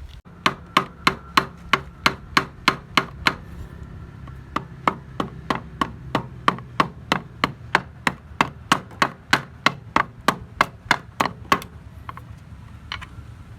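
A hammer tapping metal in a steady rhythm of about three ringing strikes a second, on parts of a small diesel engine being rebuilt; the tapping stops near the end, with a couple of lighter taps after.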